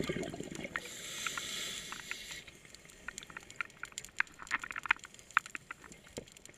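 Underwater scuba sound: a regulator breath hiss for about the first two seconds, then a steady scatter of sharp crackling clicks, the crackling that divers put down to fish feeding.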